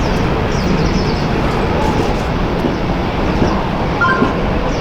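Jet aircraft engines running in a steady, loud rumble. A brief two-tone chirp comes about four seconds in.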